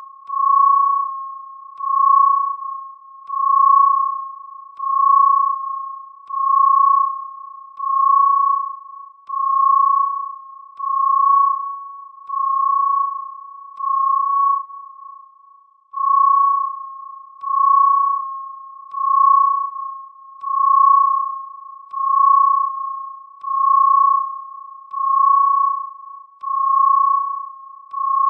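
Synthesized science-fiction alarm: a single pure electronic tone at one pitch, pulsing about once every one and a half seconds, each pulse swelling quickly and then fading.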